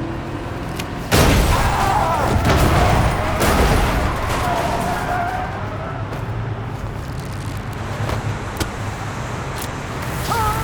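Designed action-movie vehicle effects: a steady car rumble, broken about a second in by a sudden loud crash-like impact, followed by wavering squealing tones and scattered sharp hits.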